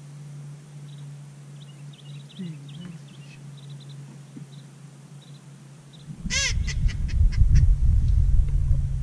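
Ducks calling: faint high peeps and whistles in the first few seconds, then a loud quack about six seconds in, followed by a few shorter calls. A low rumble starts at the same moment as the quack.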